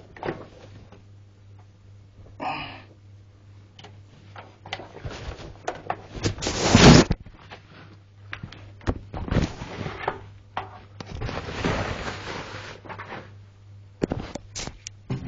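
Unpacking handling noise: packaging rustling and scraping with scattered knocks and clicks as the recorder and its packing are moved about. There is a louder burst of rustling about seven seconds in, over a faint steady low hum.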